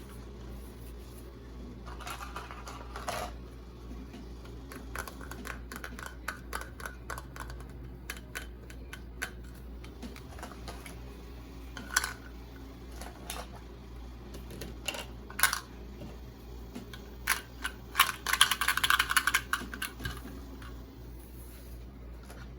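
Small items being handled and set down: scattered light clicks and taps, with two short spells of rustling, about two seconds in and again near the end.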